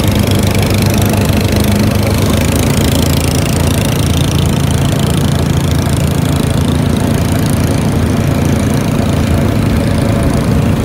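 Motor of a small wooden river passenger boat running steadily under way, heard on board as a constant low drone.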